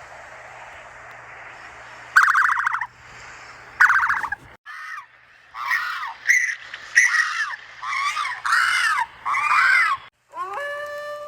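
Animal calls: two short rattling calls, then a quick run of about eight rising-and-falling squawks.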